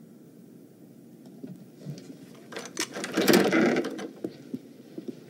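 Quiet room tone, then about two and a half seconds in a short flurry of footsteps and clicks from a door handle and latch as a door is opened, lasting about a second and a half.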